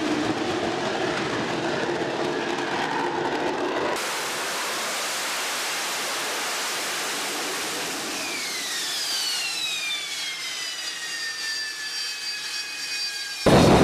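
AV-8B Harrier II's Rolls-Royce Pegasus turbofan running: a steady engine hum that changes sharply about four seconds in to a loud hissing jet roar. Over the last few seconds a high whine falls in pitch as the engine spools down.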